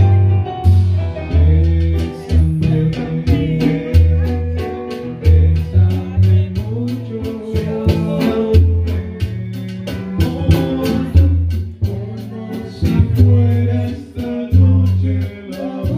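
Background song: singing over guitar and bass with a steady beat.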